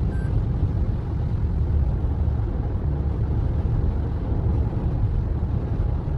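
Steady road and tyre noise inside a moving car's cabin on a wet highway: a continuous low rumble with a hiss from the tyres on the rain-soaked road.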